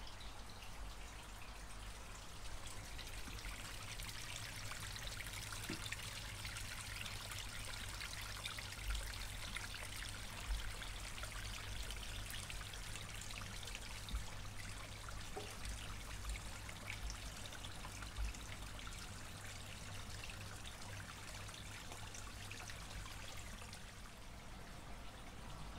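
Water trickling and splashing steadily over rocks into a garden koi pond, with a few soft knocks now and then.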